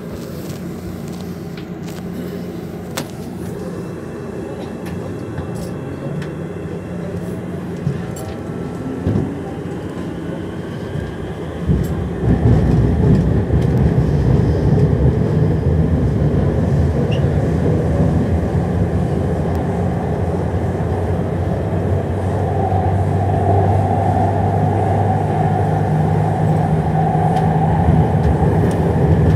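São Paulo Metro Line 4 train running through a tunnel, heard from on board: a whine rising in pitch as it gathers speed, then a louder, steady rumble of wheels on rail from about twelve seconds in. A steady higher tone joins over the last several seconds.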